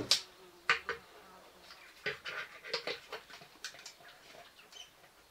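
A scatter of light clicks and taps from a mains power adapter being plugged in and its leads handled.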